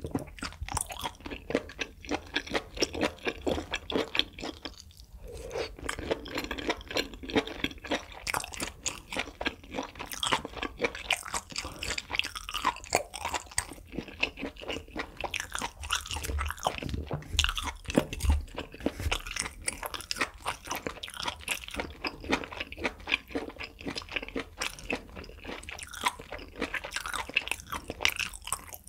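Close-miked chewing of grilled beef intestine (makchang): a dense run of small wet clicks and crackles from the mouth, with a short pause about five seconds in.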